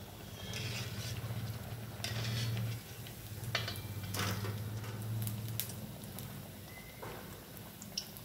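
Breaded potato-vegetable tikki deep-frying in hot oil in a steel kadai, the oil bubbling, while a slotted steel spoon clinks and scrapes against the pan several times as the patty is lifted and turned. A low hum runs through the first five seconds or so.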